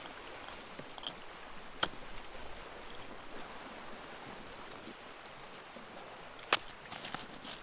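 Charcoal and stones in a stone fire ring being shifted by hand: a few sharp knocks, one about two seconds in and a louder one near the end, followed by a few lighter clicks, over a steady outdoor hiss.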